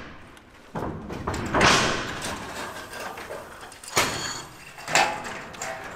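Sheet-metal roofing panels being handled: a long scraping slide of a panel starts suddenly about a second in, then two sharp metal bangs with a brief ring come about four and five seconds in.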